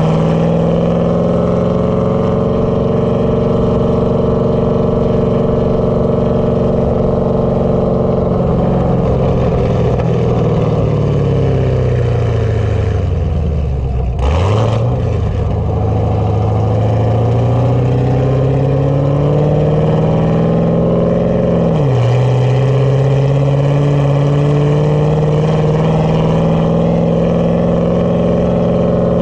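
Camaro V8 with a Texas Speed stage 1 VVT camshaft, heard from outside the car while it is driven. The engine note falls as the car slows, with a brief rush of noise about halfway through. It then climbs under acceleration, drops sharply at an upshift about 22 seconds in, and climbs again.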